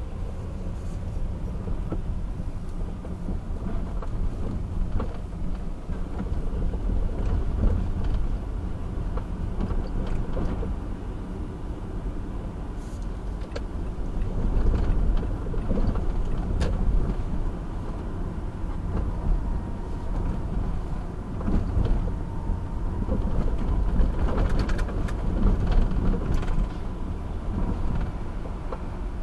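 Car driving through city traffic: a steady low road and engine rumble with scattered short clicks and knocks.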